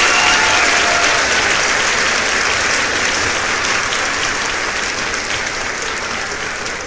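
A group of people clapping, dense and steady, slowly dying down.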